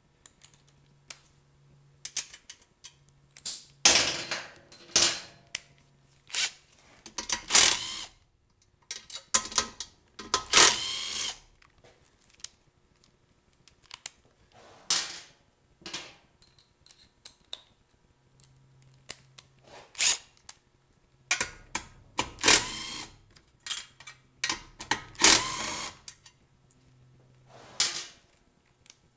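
Tool work on the engine shroud of a Briggs & Stratton lawn mower engine as it is taken off: irregular metallic clicks and rattles, with several dense bursts of about a second each.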